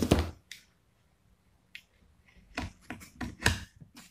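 Clicks and clacks of a hand pop-rivet tool being handled and its nose fitted over a rivet's mandrel, the metal handles knocking. There is a sharp knock at the start, then a cluster of clicks about two and a half to three and a half seconds in.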